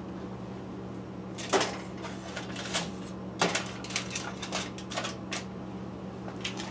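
Potato halves and aluminium foil handled in a roasting pan: a scatter of light knocks, taps and crinkles, over a steady low hum.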